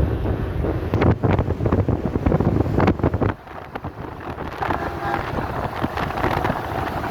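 Wind buffeting the microphone over the low rumble of passing road traffic. The rumble drops away sharply a little over three seconds in, leaving a steadier, quieter wash.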